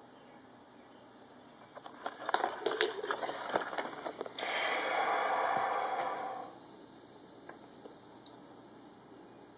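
Camera handling noise: a run of clicks, scrapes and crackles as the camera is moved, followed by about two seconds of a steady rushing noise that cuts off suddenly.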